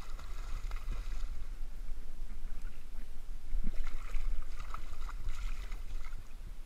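Hooked striped bass thrashing and splashing at the water's surface in irregular bursts, loudest about four seconds in, over a steady low rumble.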